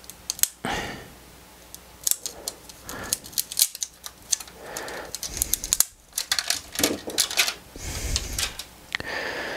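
Small plastic smart plug being handled and picked at: irregular sharp clicks and short scratchy scrapes as its label is worked loose from the plastic case.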